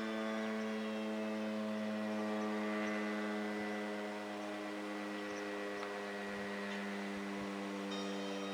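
Federal Signal STH-10 outdoor warning siren sounding a steady, unwavering tone at full speed during a short alert test.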